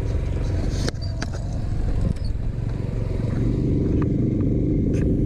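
Motorcycle engine running while riding over rough dirt ground, with a few sharp knocks from the bumpy track; the running grows a little louder about halfway through.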